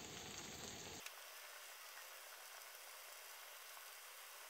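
Faint, steady sizzle of chicken and vegetables frying in oil in a cast-iron kazan over a fire. About a second in, the low background rumble drops away and only the hiss remains.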